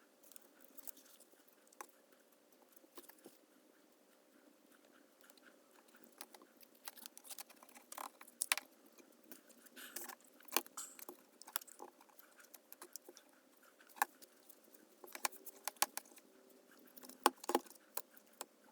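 Scattered light clicks and small rattling taps of objects being handled, sparse at first and busier from about six seconds in, with a few sharper clicks near the end.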